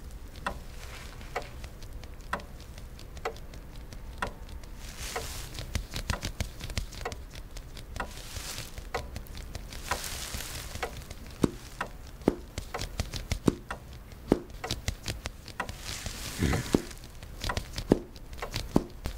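Idle tapping: plastic-gloved fingers tapping on a wooden chair armrest and a foot in a shoe cover tapping on a wooden floor. The light taps come about one a second at first and grow busier and less regular, with a few heavier knocks near the end.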